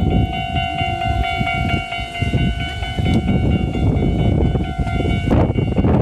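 Japanese railway level-crossing warning bell ringing steadily over a low rumble, then cutting off about five seconds in.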